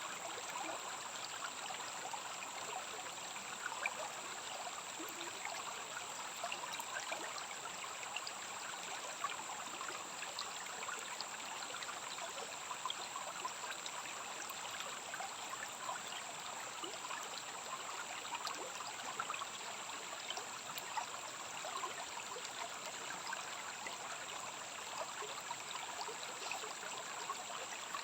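Rainforest stream flowing and trickling steadily, with a steady high-pitched tone over the water.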